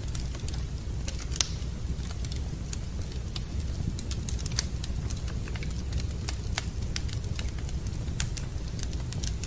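Wood fire crackling in a fireplace: irregular sharp pops and snaps, a few louder ones (about a second and a half in and again about four and a half seconds in), over a steady low rumble.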